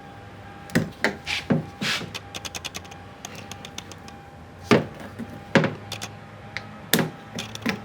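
Irregular clicks and knocks of a car's exterior door handle being worked and popped out of the door, with a run of quick light ticks in the middle and a few sharper knocks later on.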